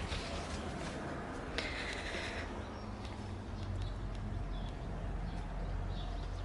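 Outdoor garden ambience: a low steady rumble with faint bird chirps, and a brief hissing rasp about one and a half seconds in.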